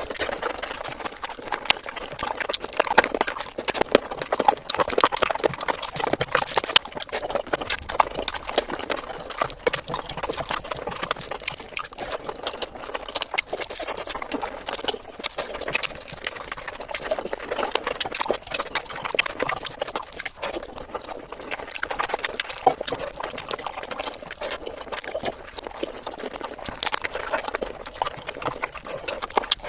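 Close-up eating sounds of someone chewing chicken biryani: a dense, continuous run of small clicks and smacks.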